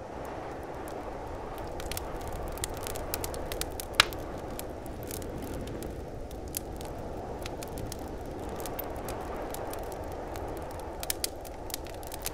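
Fire crackling: a steady low rushing with scattered sharp pops, one loud pop about four seconds in and a few more close together near the end.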